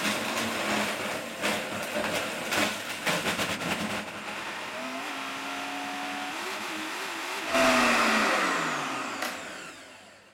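Optimum 9900 commercial blender crushing ice and frozen fruit cubes with yogurt and milk: at first chunks of ice rattle and clatter against the jar, then the mix smooths into a steady whir. About seven and a half seconds in it gets louder as the speed goes up, then it is switched off and winds down with a falling whine.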